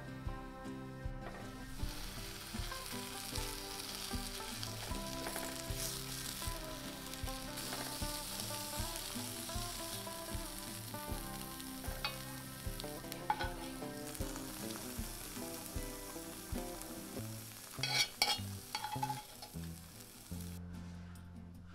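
Paneer cubes sizzling in oil in a cast-iron skillet, with a silicone spatula scraping and tapping against the pan as they are stirred; a louder cluster of scrapes comes about 18 seconds in. The sizzle cuts off shortly before the end.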